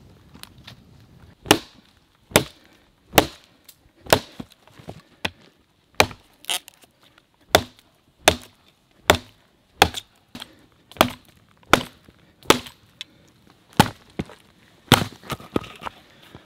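Hatchet chopping into a dead log: a steady run of sharp wooden strikes, a little more than one a second, with lighter taps in between.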